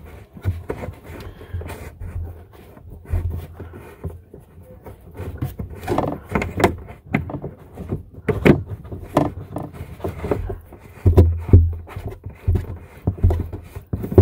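Hand-threading a water supply line's plastic coupling nut onto a faucet's brass shank inside a sink cabinet: irregular scraping, rubbing and small clicks as the nut is screwed and unscrewed on a thread that won't start easily, with a few low thumps.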